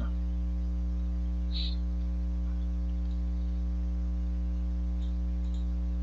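Steady electrical mains hum on the recording, a low buzz with many even overtones and no change in level.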